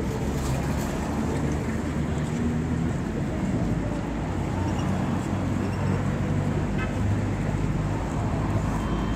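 Street traffic noise: vehicle engines running steadily on the road.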